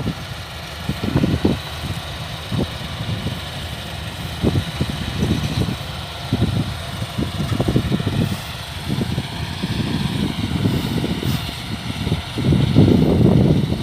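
Kubota DC-105X combine harvester running, its diesel engine and machinery giving a steady whine. Irregular low rumbles come and go over it and are loudest near the end.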